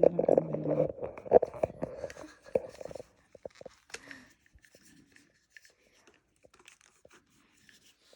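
Plastic parts and packaging being handled: crinkling, tearing and clicking, dense for about three seconds and then dying away to a few faint clicks.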